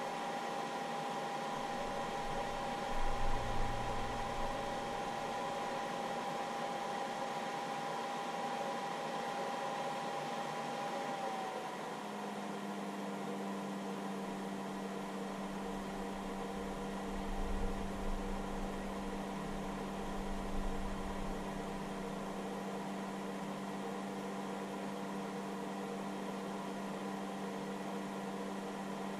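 Hobby battery charger's cooling fan running steadily with a whine, while about 85 W flows through the charger from the 18V battery. About a third of the way in, the whine drops slightly in pitch and a lower steady hum joins it. Brief low rumbles come through twice.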